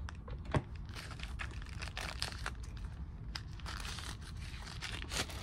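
Plastic packaging crinkling and rustling as unboxed items are handled and unwrapped, a run of irregular crackles.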